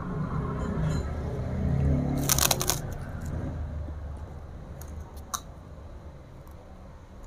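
Crispy kerupuk crackers crunching: a dense run of crackles about two and a half seconds in, then a few single sharp snaps around five seconds in.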